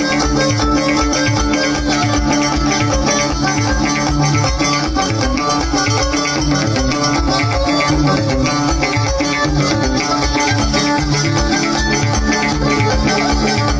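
Live Amazigh folk music played instrumentally: a steady, fast drumbeat with rattling percussion and plucked strings.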